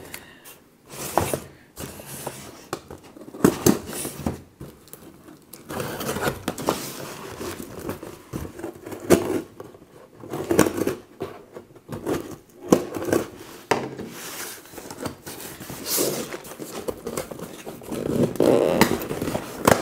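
Toy packaging being handled and opened by hand: irregular clicks, knocks and rustling of cardboard and plastic.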